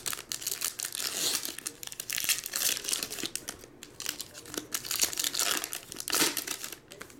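Foil trading-card pack wrappers crinkling and tearing in the hands as packs are opened, on and off in quick irregular spells.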